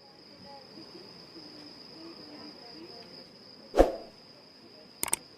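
Night insects giving a steady high-pitched drone. About four seconds in a single loud thump cuts across it, and two sharp clicks come near the end.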